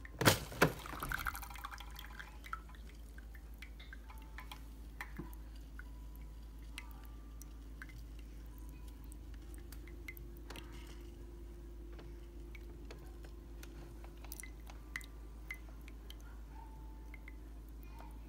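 Two sharp knocks about half a second apart at the start, ringing briefly, then scattered small drips and ticks of coffee dripping from a Keurig single-serve brewer into a ceramic mug.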